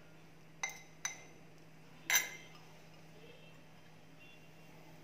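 Stainless steel spoon clinking against a glass mixing bowl while stirring grated cheese and corn: three short ringing clinks, the third the loudest.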